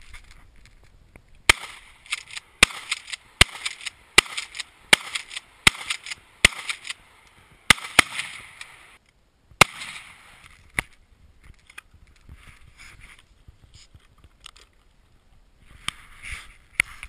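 Firearm fired in a quick string of about ten shots, roughly one every three quarters of a second, each with a short echoing tail. The shots stop about eleven seconds in, leaving faint clicks and hiss, with one more sharp crack near the end.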